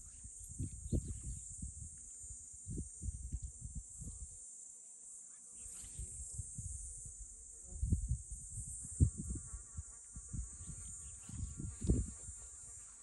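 Steady high-pitched insect chorus, with irregular gusts of wind buffeting the microphone. A closer wavering buzz joins from about ten seconds in.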